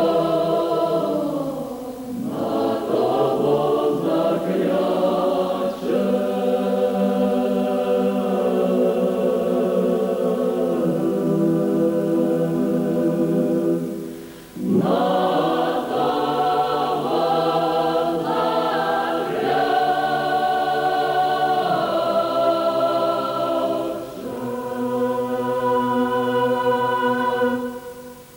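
Mixed choir of men's and women's voices singing a folk song in full held chords, with a short breath between phrases about halfway through. The song ends just before the close.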